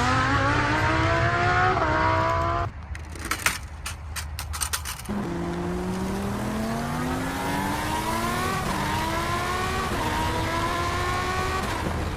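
Race-car engine sound effect accelerating, its pitch climbing and dropping back at each gear change, twice over. Between the two runs there is a short patter of sharp clicks.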